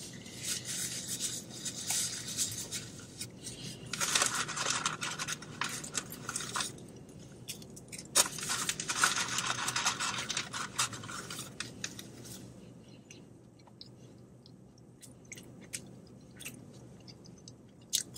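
Paper fast-food packaging rustling and scraping in several spells, the two longest about four and eight seconds in, with a few short clicks near the end.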